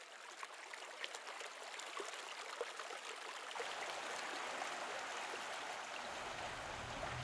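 Running water, an even rushing with many small droplet-like ticks, swelling up over the first few seconds and then holding steady.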